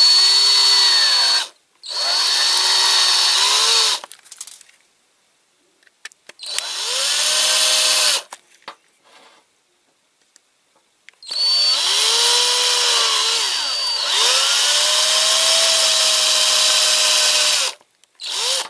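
Power drill with a small bit drilling out the rivets that hold a diecast toy car together. It runs in about five spells of a few seconds each, separated by short pauses, and its motor pitch dips and recovers as the bit bites into the metal.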